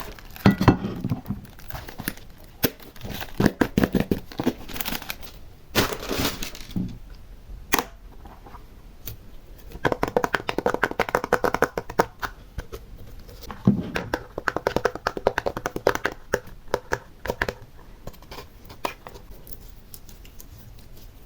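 Slime and small decorations handled by hand: irregular sticky clicks, pops and crackles, coming in dense clusters about ten and fourteen seconds in and thinning out near the end.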